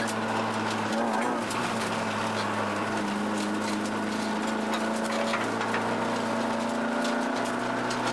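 Rally car engine heard from inside the cabin, running at steady, nearly unchanging revs, over constant tyre and road noise with scattered small clicks and rattles.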